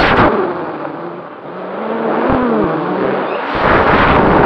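Racing quadcopter's brushless motors and propellers, heard through the onboard camera's microphone. The motor sound cuts off abruptly as the throttle is chopped, leaving a quieter rush of air with low wavering motor tones, then comes back loud as the throttle is punched up again about three and a half seconds in.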